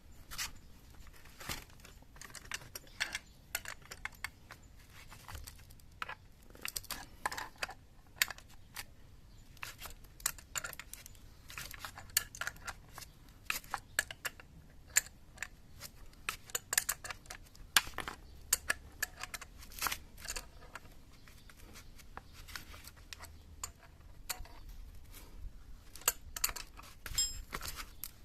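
Irregular light clicks, taps and clinks of hand tools and small metal parts being handled during scooter gearbox bearing work, with occasional crinkling.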